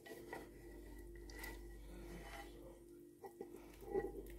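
Faint kitchen handling of dishes and utensils: a few light clicks about three seconds in and a louder knock near the end, over a steady faint hum.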